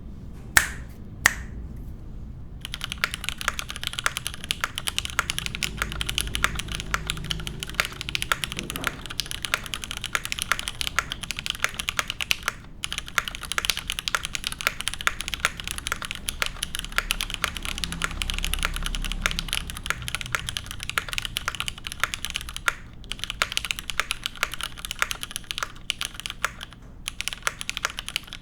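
Gasket-mount Percent Skog Reboot mechanical keyboard with lubed Cherry Hyperglide Black linear switches and GMK keycaps being typed on steadily, a dense run of key strokes with a few short pauses. Two sharp, loud clicks come first, before the typing starts a couple of seconds in.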